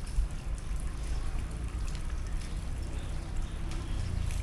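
Light rain and running hose water splashing on wet concrete, with scattered faint drips and a steady low rumble underneath.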